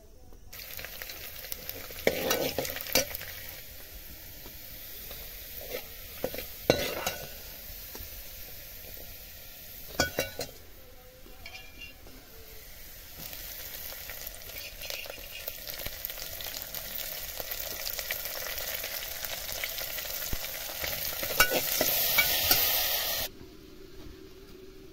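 Food frying in hot oil in a pan: a steady sizzling hiss with a few sharp scrapes and knocks of a stirring spoon against the pan. The hiss grows louder towards the end and cuts off suddenly near the end.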